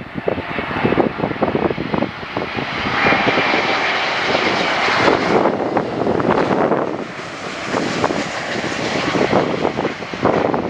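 Jet engines of a landing Airbus A320-family airliner flying low past, a steady rushing jet noise with a whine that swells about three seconds in and eases after about six seconds. Wind buffets the microphone throughout.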